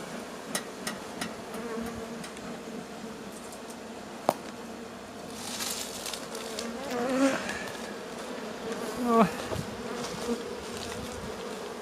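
Honeybees buzzing around an opened hive in a steady hum, with single bees passing close by about seven and nine seconds in, their buzz swooping up and down in pitch. A sharp tick about four seconds in. The colony is defensive, its bees flying at the camera.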